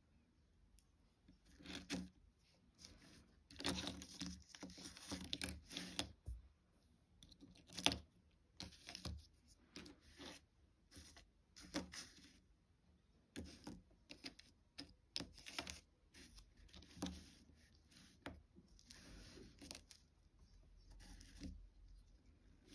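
Small hard cast pieces being handled and set down on a tabletop: scattered light clicks, clacks and short scrapes. A busier stretch of scraping and rustling comes about four to six seconds in, and the sharpest click comes near eight seconds.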